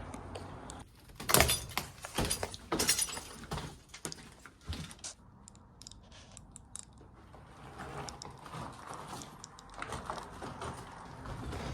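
Several sharp knocks and rattles, loudest about one and a half and three seconds in, followed by fainter scattered clicks.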